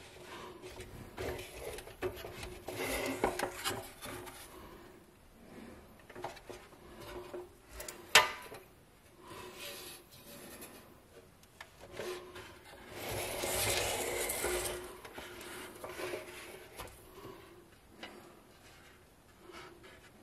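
A rusty steel Mighty Tonka dump truck being handled: scraping and rubbing as it is shifted about and its dump bed is tipped, in two longer bouts, with a single sharp clack about eight seconds in as the loudest sound.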